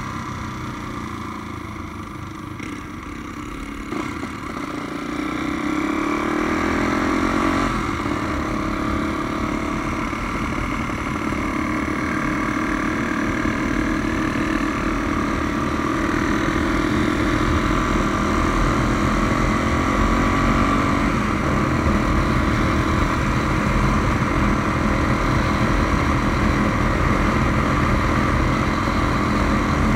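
Tuned Honda Tornado single-cylinder four-stroke motorcycle engine, bored out to 350cc, running on the road. Its pitch rises as it accelerates about five seconds in, then it holds a steady cruising note.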